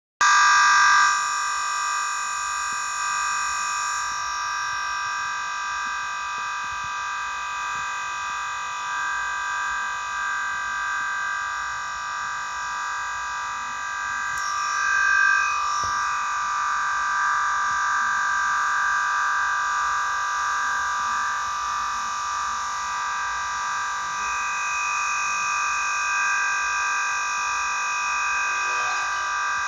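Computer crash noise: a loud, harsh electronic drone of many held tones that does not change, the stuck buzz of a computer's sound output looping after a crash.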